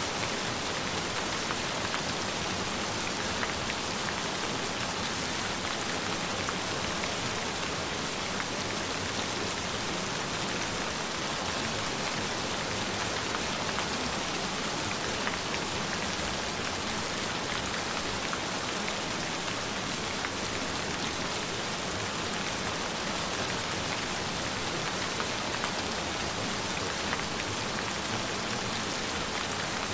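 Gentle rain falling steadily: an even hiss with fine ticks of single drops.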